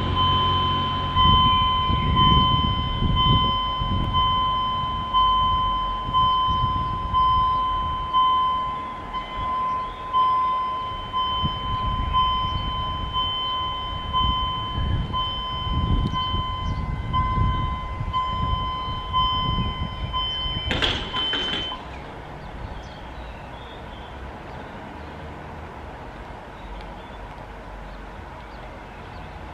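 Level-crossing warning bell ringing steadily with a pulsing tone while the barrier arm lowers, cutting off about 21 seconds in with a short burst of noise as the barrier comes down; an uneven low rumble runs underneath until then.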